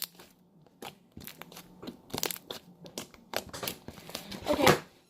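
Fluffy slime made with shaving cream being squished and poked by hand: irregular crackling and popping, loudest about four and a half seconds in.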